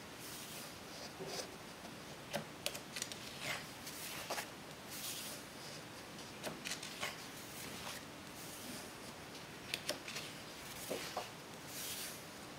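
Pages of a large hardcover photo book being turned by hand: soft paper swishes and light taps and clicks as leaves are flipped and smoothed flat, several times over.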